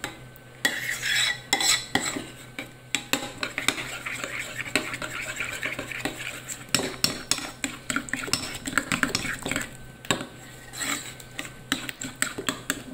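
Metal fork stirring a thick tomato-paste sauce in a small ceramic bowl, with quick, repeated clinks and scrapes of the fork against the bowl's sides.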